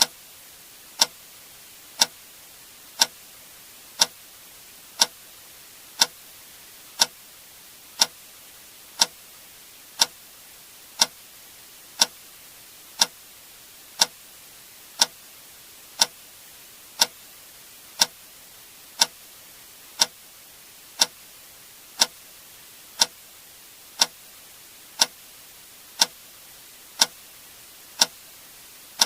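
A click sound effect repeating steadily once per second, like a clock tick, over a faint hiss.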